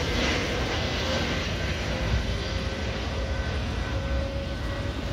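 Airbus A321neo jet airliner passing low overhead on approach to land with its gear down. Its engines make a steady rumble, with a faint steady whine.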